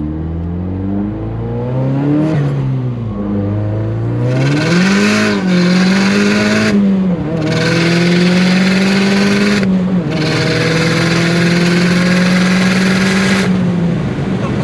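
Honda S2000 engine accelerating, its pitch climbing and dropping a few times with gear changes and then holding a steady note. A loud rushing hiss lies over it from about four seconds in, breaking off briefly a few times.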